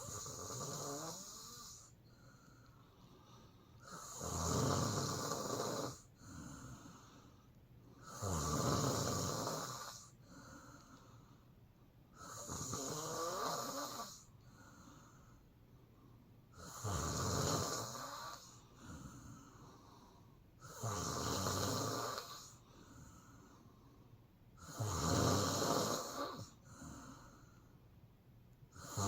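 A sleeping woman snoring in a slow, regular rhythm: a loud snore about every four seconds, with a fainter breath sound between each pair.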